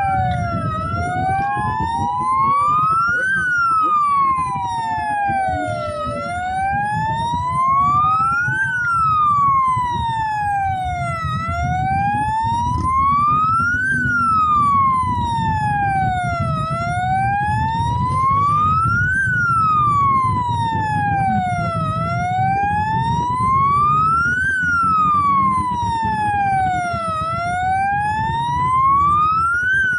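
A slow wailing siren rising and falling about every five and a half seconds, with a second siren overlapping it for the first few seconds. Beneath it runs the steady low rumble of motorcycle engines riding past in a column.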